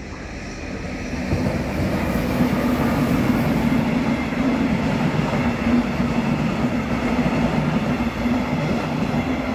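Red DB Regio double-deck passenger train passing on a nearby track: a steady rumble of wheels on rails with a low, even hum, swelling up over the first second or so and then staying loud.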